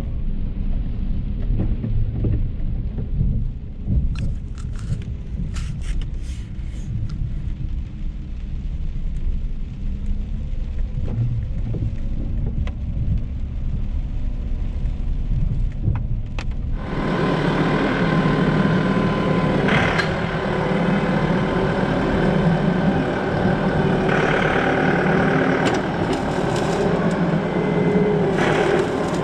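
Tractor engine running on the road, under a low rumble of wind buffeting the microphone. About seventeen seconds in, the sound changes abruptly to a clearer, steady engine drone.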